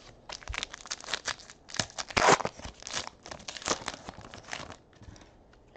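Foil wrapper of a Panini Elite Draft Picks football card pack being opened and crinkled by hand: a quick, dense run of crackles that stops about five seconds in.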